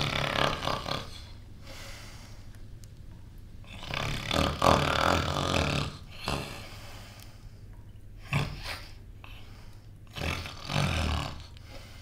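A man snoring: several rough, rasping snores at uneven intervals, the longest in the middle.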